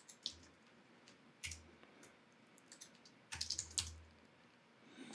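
Faint keystrokes on a computer keyboard while code is being typed: a few single taps, then a quick run of several taps a little past the middle.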